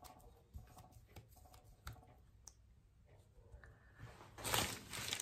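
Faint light taps and brushing as a flat glue brush works damp paper onto a glass block, then a louder rubbing sound of about a second near the end as the paper is smoothed down by hand.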